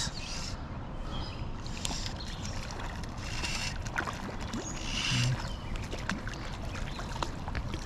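Creek water running steadily, with a few short splashes at the surface.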